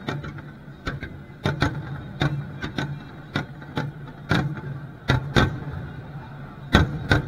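Aerial firework shells bursting: a dozen or so sharp booms at uneven intervals, the loudest near the end, over a steady low hum.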